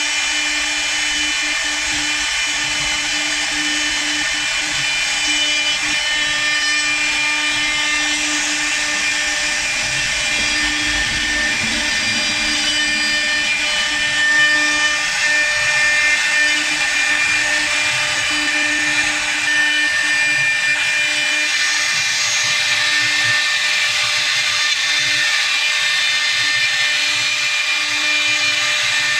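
CNC wood lathe with a high-speed cutting spindle, running and engraving a square wood blank. A steady high-pitched whine sits over the hiss of the bit cutting the wood.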